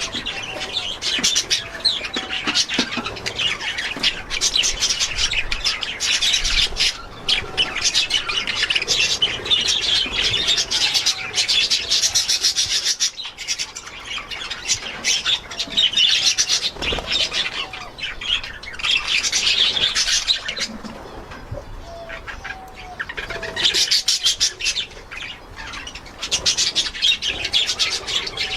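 Budgerigars chattering and chirping together in fast, dense warbling, rising and falling in waves with short lulls.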